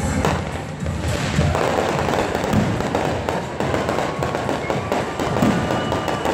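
Aerial fireworks going off: low booms of bursting shells, then from about a second and a half in a dense, rapid crackling from gold crackle shells.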